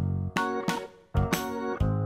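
Instrumental background music: a light tune of struck notes, a new one every few tenths of a second, with a brief gap about a second in.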